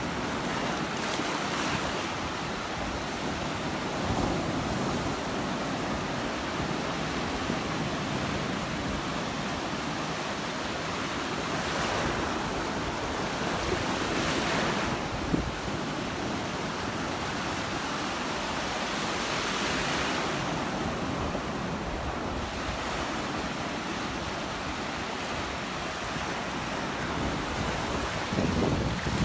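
Surf breaking and washing up on the beach, swelling every few seconds, with wind rumbling on the microphone.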